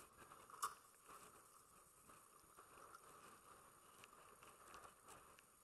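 Near silence with faint scattered ticks and one soft click about half a second in.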